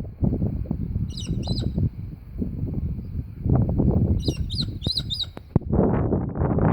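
Small finches chirping: a short cluster of high calls about a second in and a quicker run of calls around four to five seconds in. A constant low rumble of noise runs underneath and is the loudest thing.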